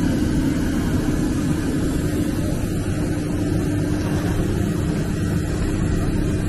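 Steady noise of a jet airliner running on the apron, a constant drone with a held tone in it, with wind buffeting the microphone.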